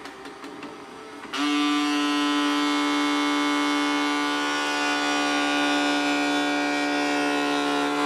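Cheap robot vacuum running: a steady whining hum that comes in suddenly about a second in and holds at one pitch.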